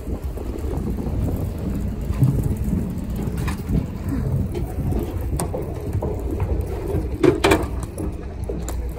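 Hard-shell suitcase wheels rolling and rattling down a gangway and across a floating pontoon deck, with a few sharp knocks, the loudest about seven seconds in, over a steady low rumble.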